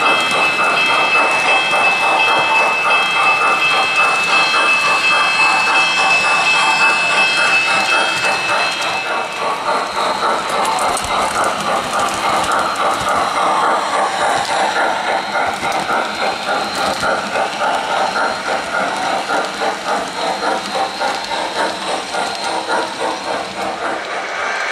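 MTH-built Lionel Blue Streak #265E O-gauge model steam locomotive and coaches running on three-rail track, with a rapid, steady clatter of the wheels on the rails. A steady high whine runs alongside for about the first nine seconds, then stops.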